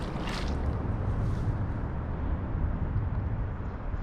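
A small bass splashing into shallow creek water as it is tossed back, near the start, followed by a steady low rumble.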